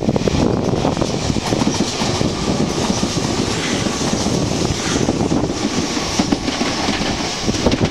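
Meitetsu 2000 series μSKY electric multiple unit running through a station at speed close by: steady running rush with wheels clicking rapidly over the rail joints.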